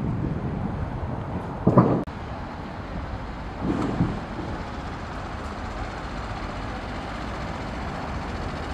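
Street ambience: a steady low rumble of road traffic, broken by two short low thumps about two and four seconds in.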